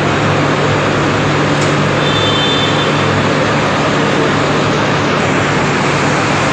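Steady, loud machinery din of a tractor assembly line, with a constant low hum under an even wash of noise.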